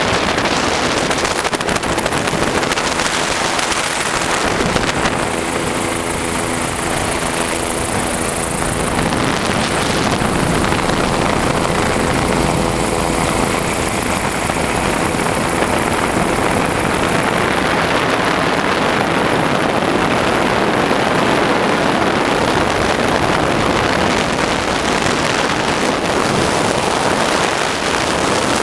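Bell 407 helicopter in flight, heard from inside the cabin: a loud, steady rush of turboshaft engine and four-blade rotor noise, with a faint hum of evenly spaced tones that comes and goes in the first half.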